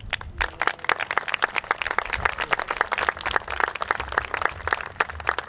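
Small audience applauding: a steady stream of many overlapping hand claps.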